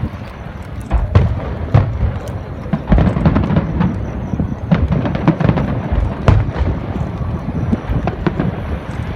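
Aerial fireworks show: shells bursting one after another in an irregular barrage of sharp booms over a continuous rumble, the strongest about a second, two seconds and three seconds in.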